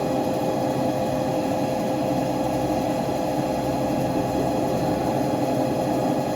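CNC lathe running steadily while machining a pinion, a constant machine sound with several steady whining tones over a noise floor.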